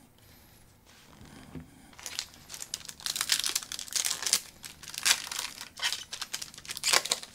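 Wrapper of a trading card pack crinkling and tearing as it is opened by hand, in irregular rustling bursts that start about two seconds in.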